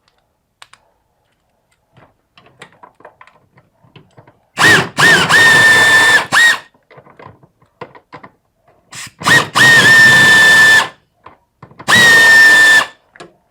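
Cordless power tool run in three bursts of about two, two and one second, each starting with a quick spin-up into a steady whine, with light clicks and taps of handling between them.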